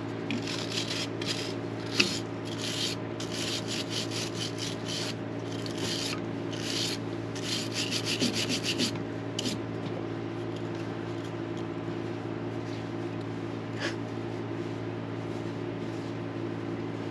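Quick, rough scraping or rubbing strokes, several a second, for about the first nine and a half seconds, then they stop. A steady low hum runs underneath throughout.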